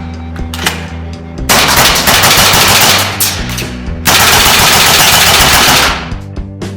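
Umarex H&K G3 gas blowback airsoft rifle (WE-Tech) firing full-auto in two long bursts, the first about two and a half seconds long and the second nearly two seconds, over background music.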